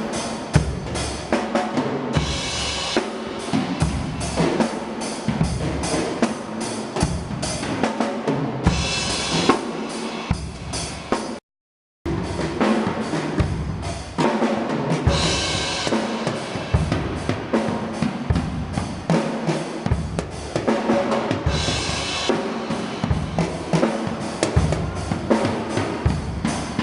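Drum kit played in a busy beat of bass drum and snare strikes, with crash cymbal washes every six or seven seconds. About halfway through it stops dead for half a second, then goes on.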